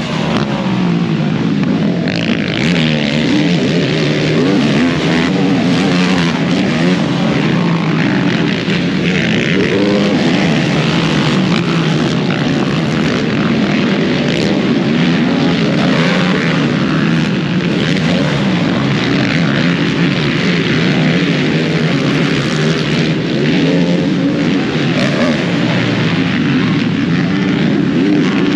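Racing ATV engines revving hard on a motocross track, their pitch rising and falling continuously with the throttle.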